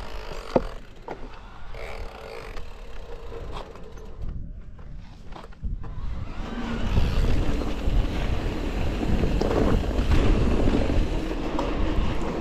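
Wind buffeting the microphone and the rumble of an electric mountain bike riding a rough trail, with a sharp click about half a second in. The rumble grows much louder about halfway through.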